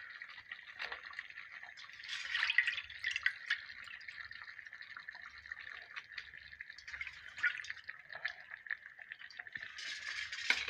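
Pieces of raw fish being dropped by hand into a clay pot of hot curry gravy: wet plops and splashes with dripping, over the steady bubbling of the gravy. The splashing is busiest about two seconds in and again near the end.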